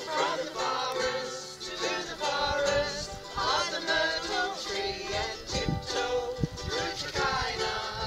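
A group of voices singing together, accompanied by a ukulele.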